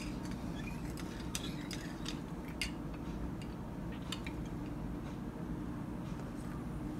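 Metal spoon stirring a matcha latte in a ceramic bowl, clinking against the bowl several times over a steady low hum.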